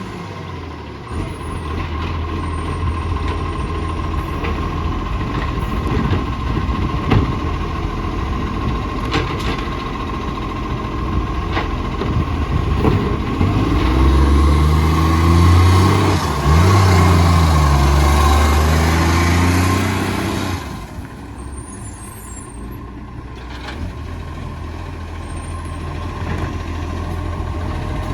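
Garbage truck's diesel engine running with an exhaust leak. Partway through, the revs rise and fall for several seconds, the loudest part, then drop suddenly back to a quieter idle.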